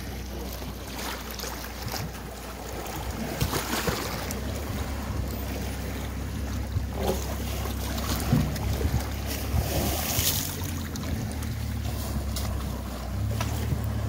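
Wind buffeting the microphone over water splashing and sloshing as elephants wallow and roll in a waterhole, with louder splashes about three and a half, eight and ten seconds in.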